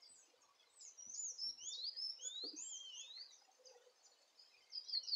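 A songbird singing a run of quick, slurred whistles that sweep up and down, from about a second in until past the middle, then starting again at the very end. A few faint soft knocks are underneath.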